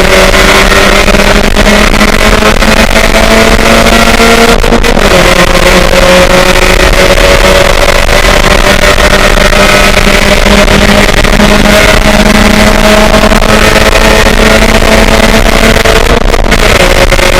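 Race car engine pulling hard under acceleration, its pitch climbing slowly, with a sudden drop in revs at an upshift about five seconds in and another near the end, over a loud rushing noise.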